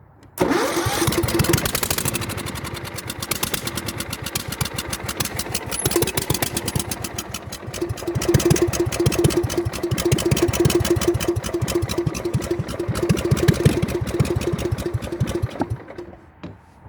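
Mud mower's small engine catches suddenly, runs for about fifteen seconds with uneven firing, then dies near the end. The owner takes the mower to be overheated and possibly out of gas.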